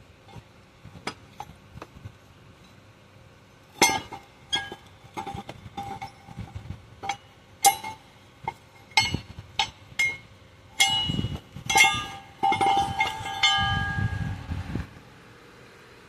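Metal hand tools and loose steel parts clinking and knocking against metal in a truck's engine bay as bolts and a bracket come off: irregular sharp metallic strikes with short ringing. They start about four seconds in, bunch together near the end with a few duller knocks, then stop.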